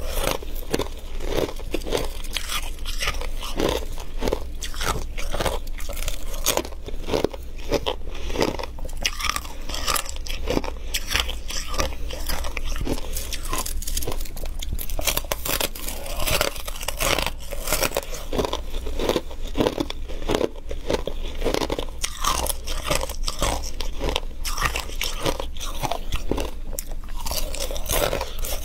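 Close-up crunching of flaky, crispy freezer frost being bitten and chewed, with dense, rapid crackles throughout over a low steady hum.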